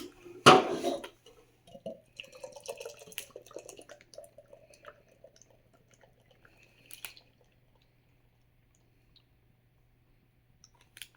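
Beer being poured into a tankard: a loud rush about half a second in, then pouring and fizzing for a few seconds that dies away, with a faint steady hum underneath.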